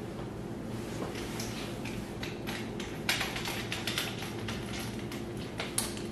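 Small clicks and taps of bolt, lock washer and nut hardware being hand-tightened at a corner fitting of a dog-bed frame, thickest about three to four seconds in, over a steady low hum.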